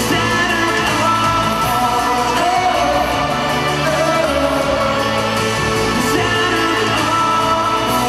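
Male lead singer singing a pop ballad melody into a handheld microphone over full band backing music, held notes over steady chords and bass.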